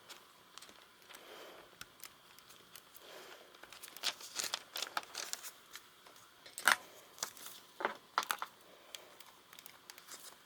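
Hands handling the hair dryer's plastic parts: scattered clicks, taps and light crinkling, busiest in the middle, with the loudest click about two-thirds of the way through.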